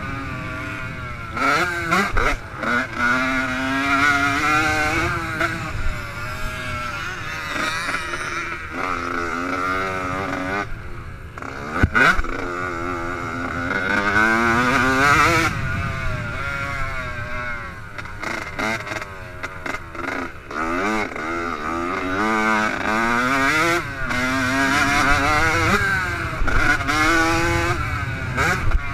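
Yamaha YZ85 two-stroke dirt bike engine revving hard, its pitch climbing and dropping over and over as it is ridden around a motocross track. A single sharp knock cuts through about midway.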